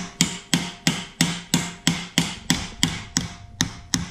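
Hammer striking steadily, about three blows a second, tapping a tight plastic part onto a climbing tree stand's tubing, with something laid over the end to keep it from breaking. A ringing tone carries between the blows.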